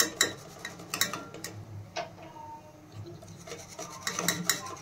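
Stainless steel mesh strainer scraping and clinking against a steel pot, with fried almonds shifting in the mesh: a run of short scrapes and clicks.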